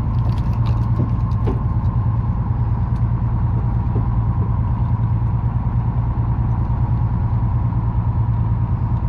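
Charter fishing boat's engine running steadily: a low, even hum with a faint high whine over it. A few light clicks come in the first second or so.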